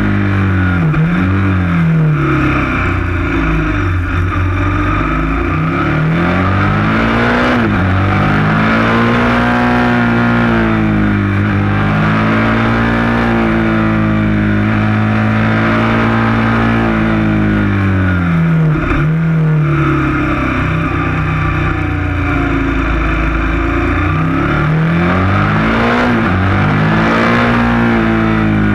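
KTM 1190 Adventure S's V-twin engine heard up close from the bike, its note rising on acceleration and falling off as the throttle closes or a gear changes, several times over.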